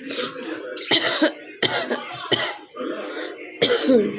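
A woman coughing repeatedly, about six harsh coughs in four seconds, the last the loudest near the end, from a heavy cold.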